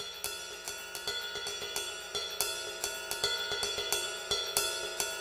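Quiet background music intro: quick, light, evenly spaced taps over a few steady high tones, slowly getting louder.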